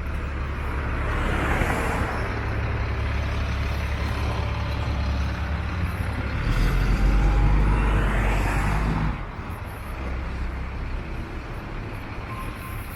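Road traffic passing, with a heavy vehicle's engine rumble swelling to its loudest about six and a half seconds in, then easing off about nine seconds in.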